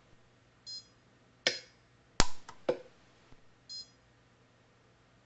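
Orion pulse-arc welder tack-welding the layers of a stacked fountain-pen nib: a short high beep, then three sharp snapping cracks of the weld pulses about a second and a half to three seconds in, the middle one loudest, and another short beep near four seconds.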